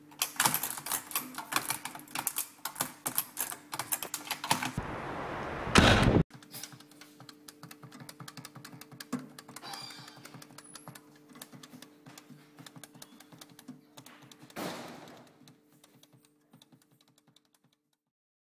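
Rapid, irregular clicking, then a loud burst of noise about five seconds in that cuts off suddenly. Fainter clicking follows over a steady low hum, fading away near the end.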